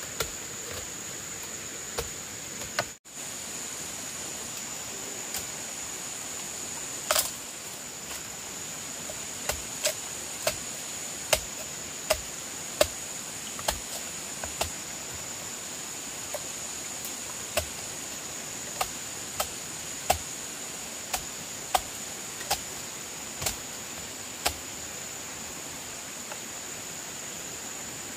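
Steady high-pitched insect drone over outdoor hiss, with a series of sharp knocks, about one a second, from about nine seconds in to near the end.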